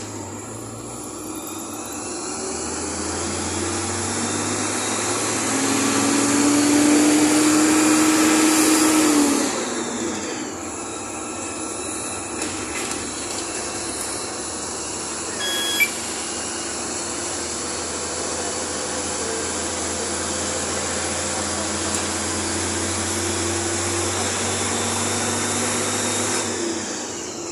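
Bus engine and road noise heard from inside the bus. It swells as the bus picks up speed, with a slowly rising whine. It drops back about nine seconds in and then runs steadily, with a single sharp click about sixteen seconds in.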